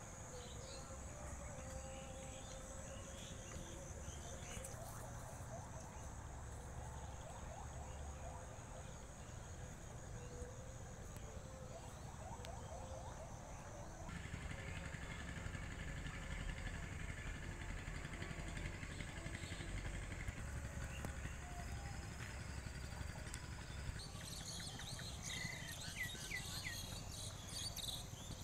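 Rural outdoor ambience of insects chirring steadily, with occasional short chirps over a low steady rumble. The mix changes abruptly twice, about halfway and again near the end, where the high chirring grows busier.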